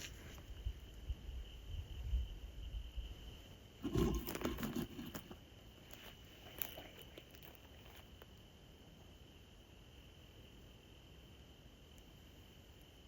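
Insects trilling steadily on one high pitch, with a brief rustle about four seconds in that is the loudest sound.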